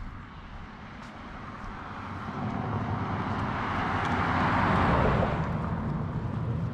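A vehicle passing by: a rushing noise that swells for about four seconds, peaks, then fades quickly, leaving a low rumble.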